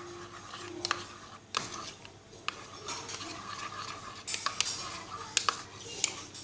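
A spoon stirring a batter of flour, food colouring and water in a container, scraping with irregular clicks as the spoon knocks against the sides.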